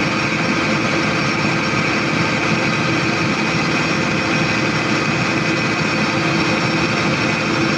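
Cat 320D excavator's diesel engine running steadily with a high whine from the hydraulic pump, while the main pump's flow adjusting screw is set to cure the machine's overload and low power.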